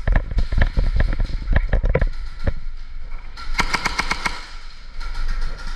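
Airsoft gunfire: a loose string of sharp single shots for the first two or three seconds, then a fast burst of about a dozen shots a little past the middle.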